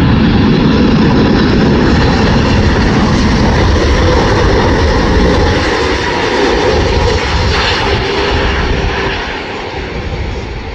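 Jet engines of a Boeing 787 Dreamliner airliner on final approach, a loud steady engine noise close by. It eases off and fades over the last few seconds as the jet flares over the runway.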